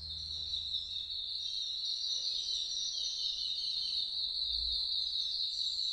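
A steady chorus of high-pitched, rapidly repeated chirping, while the low tones of background music fade out in the first second or two.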